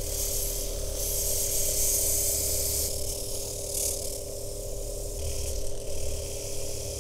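Pen-style rotary tool with a small abrasive disc running with a steady whine while it grinds against the inside of a metal camera back panel. The grinding hiss is heaviest for a couple of seconds near the start, then lighter.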